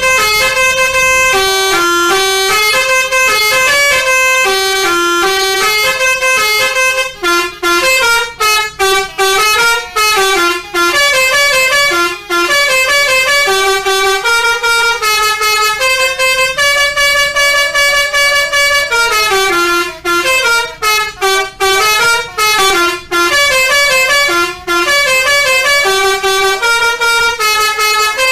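Bus 'telolet' musical air horn of the Basuri type playing a fast tune of stepped notes, changing several times a second. It plays almost without a break, with short pauses between phrases in places.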